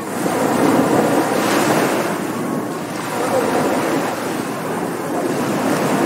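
Ocean surf washing onto a beach, the waves rising and falling in swells, with surges about a second and a half in and again near the end.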